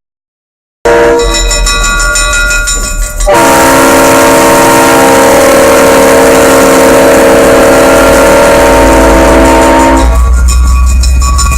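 After a brief dropout at the start, an EMD GP40-2 diesel locomotive's engine rumbles, then its horn sounds one long, steady chord for about seven seconds before cutting off and leaving the loud engine rumble.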